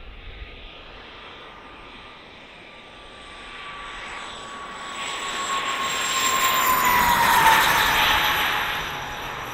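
Four JetsMunt 166 model jet turbines on a large RC Airbus A380 whining as it makes a low pass. The whine grows louder to a peak about seven and a half seconds in, then drops in pitch as the plane goes by.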